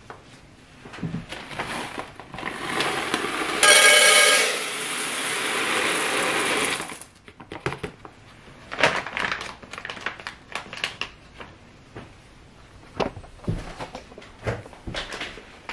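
Hard wax beads poured from a plastic bag into a wax warmer's metal pot: a continuous rattling pour lasting about six seconds and loudest near its middle. After it come scattered knocks and clicks of handling.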